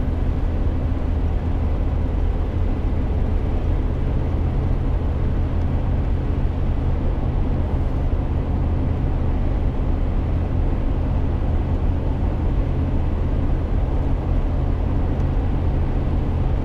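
Vehicle cruising along a wet highway, heard from inside the cab: a steady low engine and road drone with tyre hiss, unchanging throughout.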